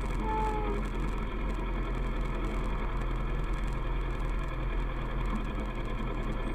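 Kawasaki ER-6f parallel-twin engine running steadily at cruise, with constant wind and road noise. A short, slightly falling tone sounds about half a second in.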